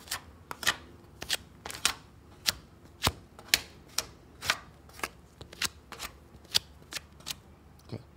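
Two-part body filler being spread onto a repaired tractor body panel with a spreader in quick short strokes: a sharp slap or scrape about two to three times a second, unevenly spaced. The filler is being kept moving in thin passes to fill the slots and gaps.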